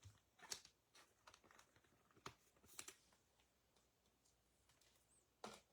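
Near silence broken by a few faint, scattered clicks and taps, as of trading cards and card sleeves being handled on a table.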